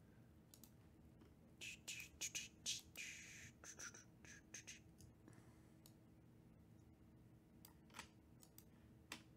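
Faint clicks and a short scratchy rustle, bunched together from about one and a half to five seconds in, then two single clicks near the end, over near silence.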